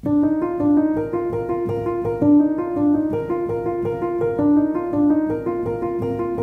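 Intro music: a piano playing a steady, repeating figure of short notes.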